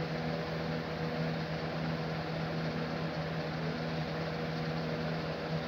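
A steady low machine hum at a constant pitch, under a faint even hiss, with no change or sudden sounds.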